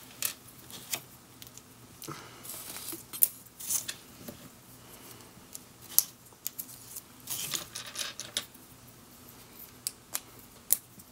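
Small plastic LEGO Technic parts being handled: irregular sharp clicks as pins and beams knock together and are pressed into place, with brief rustling as pieces are sorted through in a loose pile.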